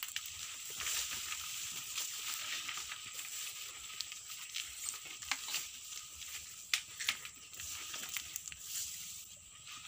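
Footsteps pushing through dense forest undergrowth: leaves rustling and twigs cracking in scattered sharp clicks, over a steady high-pitched insect chorus.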